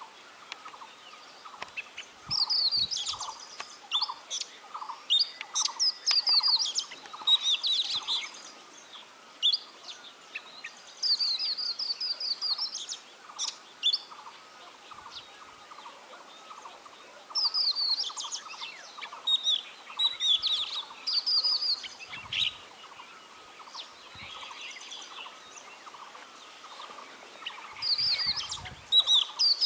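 Oriental magpie-robin singing: bouts of rapid, varied high notes with sharp rising and falling sweeps, each bout a few seconds long with pauses between. A steady, evenly pulsing lower call repeats in the background.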